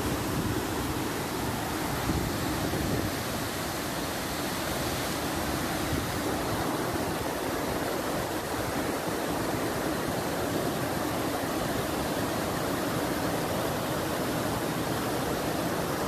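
White water rushing over rocky rapids below a waterfall: a steady, even rush that does not let up.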